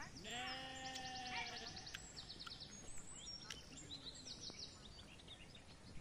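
A sheep bleats once near the start, a single long, steady call lasting about a second and a half. High, fast chirring trills come and go behind it.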